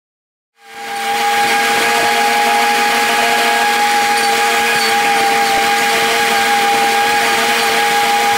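Small engine of a ride-on dethatching machine running steadily at high speed, with a steady whine over a hiss; it fades in about half a second in.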